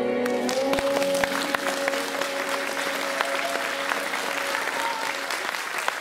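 Audience applause breaks out a moment in, over the last held chord of the dance music, which dies away about five seconds in.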